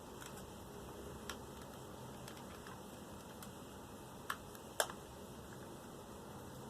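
Three light clicks from a spring-powered 1911-style BB pistol being handled as its clip is seated, the last and loudest about five seconds in.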